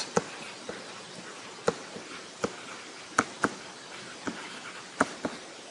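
Stylus tapping and clicking on a pen tablet while handwriting: about ten short, sharp taps at irregular spacing over a faint steady hiss.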